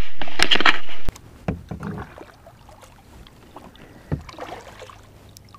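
A loud rushing noise for about the first second that cuts off abruptly, then quiet small-boat sounds from a kayak: a few soft knocks against the hull.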